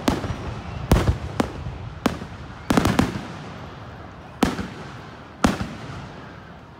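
Aerial fireworks shells bursting overhead: a string of sharp bangs at uneven gaps of about half a second to a second, several close together about three seconds in. Each bang is followed by a rolling echo, and the last comes about five and a half seconds in.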